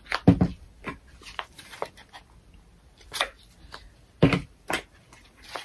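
A few separate knocks and taps, a couple of them louder, from small items being handled and set down on a table.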